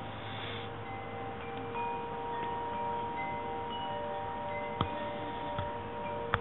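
Chimes ringing: several long, overlapping tones at different pitches, with two faint clicks near the end.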